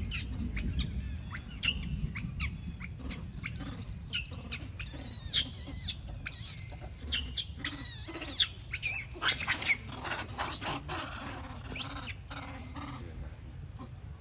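Young long-tailed macaque screaming in distress: a rapid string of shrill, high-pitched squeals that thin out near the end.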